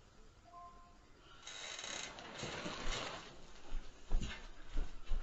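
Rustling and rattling noise, then a string of short, dull thumps from about four seconds in.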